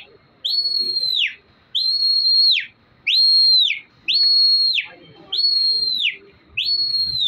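Loud, shrill whistling by a pigeon flyer calling to his flock in the air: six high notes, about a second and a quarter apart, each rising quickly to a held high pitch and dropping off at the end.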